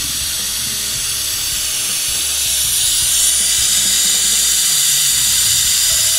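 Compressed air hissing steadily through a pneumatic MityVac fluid evacuator as it pulls a vacuum to draw engine oil up through the dipstick tube; the hiss grows a little louder about three seconds in.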